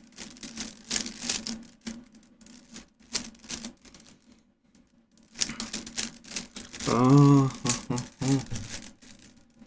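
Rubik's cube being turned fast by hand, its plastic layers clicking in quick irregular runs, with a pause of about a second midway. A short vocal sound comes about seven seconds in.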